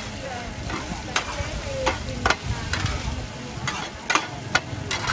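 Two metal spatulas clacking and scraping against a large flat wok, about eight sharp strikes, over the steady sizzle of a mussel-and-egg pancake (hoi tod) frying in shallow oil.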